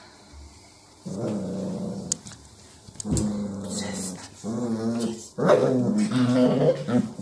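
Barbet dog growling in play: four low growls, the last the longest and loudest.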